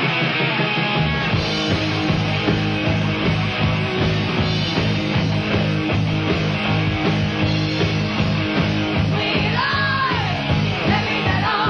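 Heavy metal band playing: electric guitar, bass and drums, with a sliding high note about ten seconds in.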